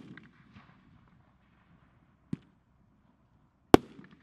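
Bada Boom "Tommy Gun" firework shells: a loud bang as a shell bursts, with faint crackle of its stars for about a second after. About two seconds in a quieter thump as the next shell is launched, and near the end it bursts with another loud bang and crackle.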